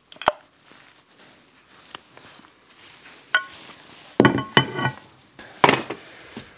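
Dismantled metal mower parts handled and set down on a workbench: a sharp click, then a ringing metal clink about three seconds in, a short clatter of parts knocking together a second later, and another clink near the end.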